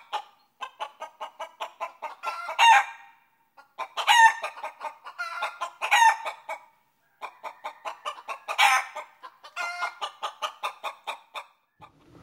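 Chickens clucking in quick runs of short clucks, about four or five a second, broken by four louder drawn-out calls.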